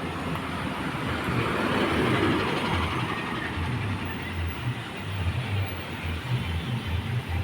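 Road traffic: a vehicle passing by, its engine and tyre noise swelling about a second or two in and then easing off, with no horn sounding.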